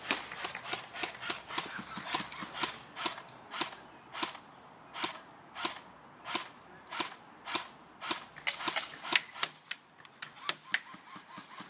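Airsoft guns firing: a long series of sharp pops, steady at about two a second through the middle, then in quicker clusters near the end.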